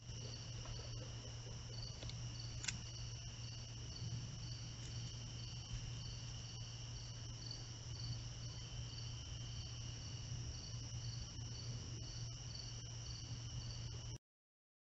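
Summer evening insect chorus picked up by a trail camera's microphone: steady high-pitched trilling, with one insect chirping about twice a second, over a low steady hum. A single sharp tick comes a little under three seconds in, and the sound cuts off suddenly near the end.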